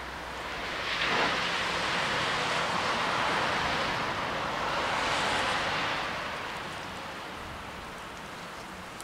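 Steady hiss of rain on a wet road, with a louder rushing noise that swells up sharply about a second in and fades away over the next five seconds.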